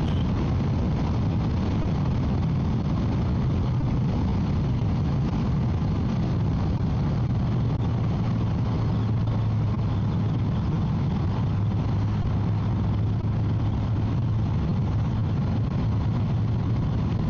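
Motorcycle riding at a steady highway speed, picked up by a mic in the rider's helmet: a constant engine hum under a steady rush of wind noise.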